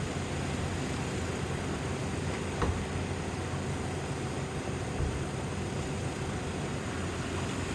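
Dynamax 470 combine harvester running steadily while harvesting rice, with one short knock about two and a half seconds in.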